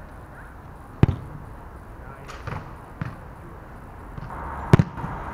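A football being struck on an artificial-turf pitch: two sharp thuds, about a second in and near the end, with a couple of fainter knocks between.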